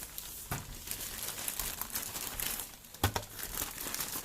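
Packaging crinkling and rustling as it is handled and opened, with two sharper clicks, one about half a second in and one about three seconds in.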